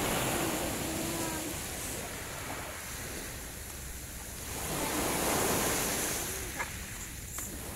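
Sea surf washing onto the beach: a steady rush that swells twice, most strongly about five seconds in, with some wind on the microphone.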